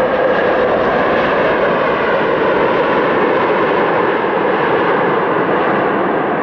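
Airbus A330 jet airliner's twin engines at takeoff thrust during the takeoff roll: a steady, loud rush of jet noise, with a faint whine fading out about half a second in. It eases slightly near the end as the jet moves away.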